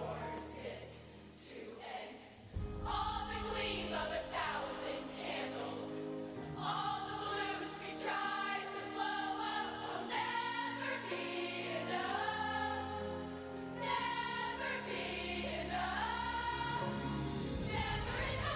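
A group of voices singing together over backing music, soft for the first couple of seconds, then fuller and louder from about two and a half seconds in.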